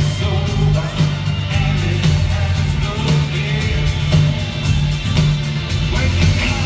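Rock band playing live in a concert hall: drums, bass, electric guitars and keyboards with a male lead vocal, over a steadily pulsing low bass line, recorded from the audience.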